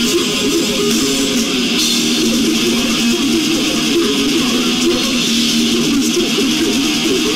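Metal band playing live, loud and continuous: electric guitar and bass guitar.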